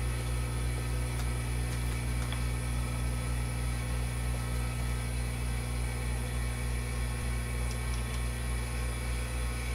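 Milling machine running steadily without cutting, a steady low hum with its spindle turning.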